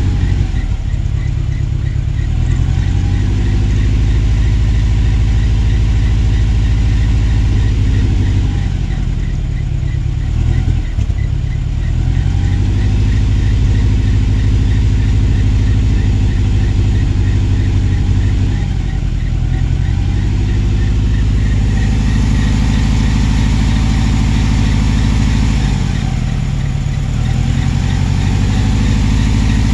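Dodge Ram pickup truck's engine idling steadily with the hood open, its pitch sagging briefly and recovering a few times.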